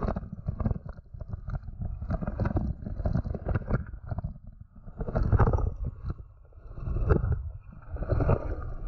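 Mountain bike rolling fast over a gravel and dirt track: tyres crunching on stones and the bike rattling with dense clicks and knocks, with swells of low wind rumble on the microphone several times.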